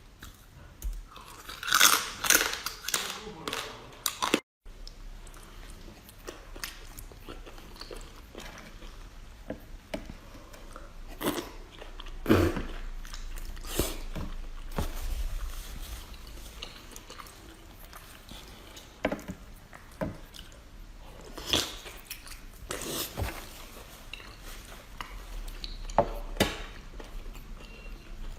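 Close-miked eating of spicy seafood: biting, chewing and crunching, with scattered sharp crunches throughout. The sound briefly cuts out about four and a half seconds in.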